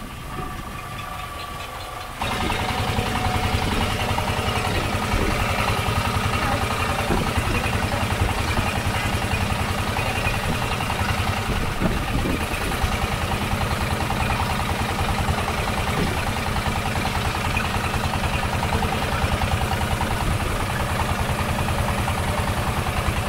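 Boat engine running steadily at idle, with a rapid, even firing beat. It comes in abruptly about two seconds in, after a quieter stretch.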